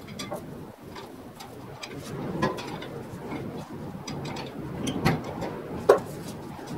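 Irregular metal clicks and clinks from hand work on the engine and transmission being lined up on their mounts, with one sharper knock about six seconds in.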